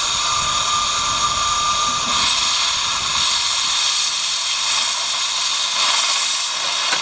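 Steam hissing steadily from the replica of Förstlingen, Sweden's first steam locomotive, with a thin high whistling tone for about the first two seconds.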